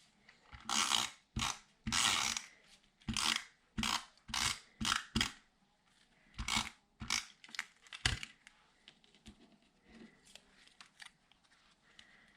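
Short scratchy strokes and rustles of paper and card being handled, about a dozen in the first eight seconds, then fainter clicks and taps.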